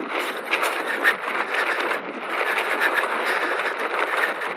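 Mountain bike rolling fast over a dirt trail: a steady rush of tyre noise with frequent clicks and rattles from the bike.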